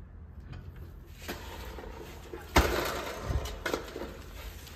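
Bill acceptor with stacker being picked up and turned over by hand, its plastic housing knocking and rattling on the table a few times, the loudest knock about two and a half seconds in.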